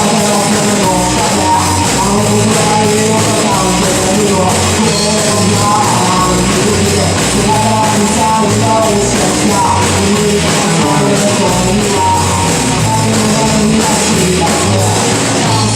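Amateur rock band playing rock and roll live, loud and dense, with electric guitars, bass and drums.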